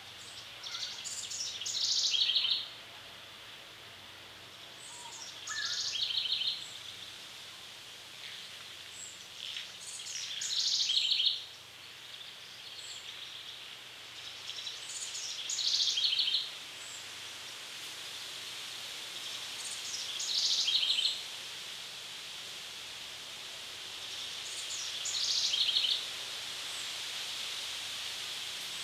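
A songbird in summer woodland repeating the same short song phrase about every five seconds, six times. Each phrase starts high, drops and ends in a fast trill, over a steady high background hiss.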